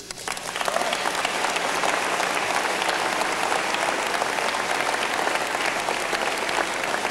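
Audience applauding: many hands clapping at once, the applause swelling within the first second and then holding steady.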